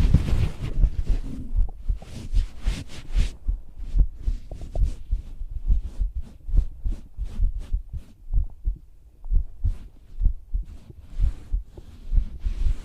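A person's heartbeat heard close up from the chest: steady low thuds a little faster than one a second, with faint scratchy noises in between.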